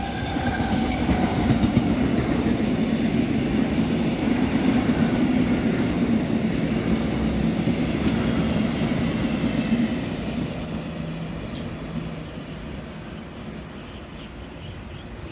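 Taiwan Railways EMU700 electric multiple unit running past on the rails, loud for about ten seconds, then fading as it moves away.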